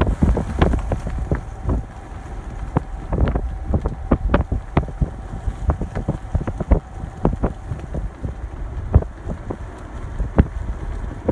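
Empty centerbeam flatcars of a passing freight train rolling by: a low rumble with many irregular metallic clicks and clanks from the steel wheels and cars, and wind buffeting the microphone. A faint steady ringing tone stops about eight seconds in.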